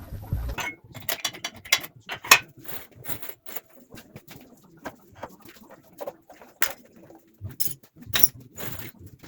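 Irregular sharp metallic clicks and knocks of hand tools working on the truck's axle. A low rumble underneath stops abruptly under a second in.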